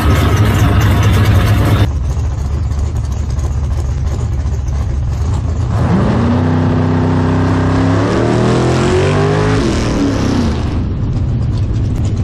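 Big-block drag car engine running loud, with an abrupt change to a steadier, lower engine rumble about two seconds in. About halfway through, the engine's pitch rises, holds briefly, then climbs again as it accelerates, dropping back near the end.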